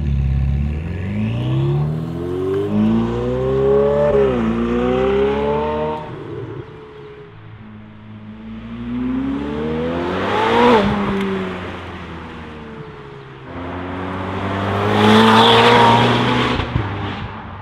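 Ferrari 488 Pista's twin-turbo V8, running through a Fabspeed exhaust with sport catalytic converters and Valvetronic dual-tone mufflers, accelerating hard. The pitch climbs through the revs with an upshift about four seconds in. The car then passes by twice at full throttle, the first pass peaking and cutting off sharply about ten and a half seconds in, the second loudest near the end.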